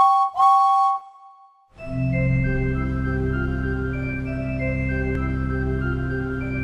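A steam locomotive whistle toots twice, a short blast then a longer one. About two seconds in, organ music starts, with a steady bass drone under a moving melody.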